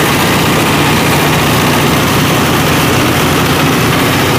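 Engine of a homemade Vietnamese crawler-tracked rice combine harvester running steadily, loud and close.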